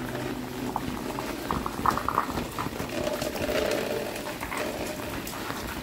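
Steady rain falling and water running, with a few short, sharper sounds scattered over it and a brief low hum about three seconds in.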